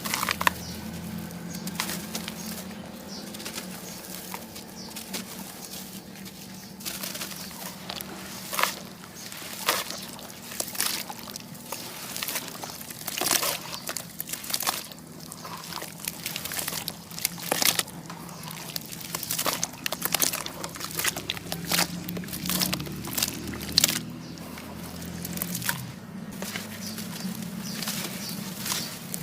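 Sand cement crumbling and breaking apart in water, a crunchy run of irregular cracks and crackles with some sharper snaps.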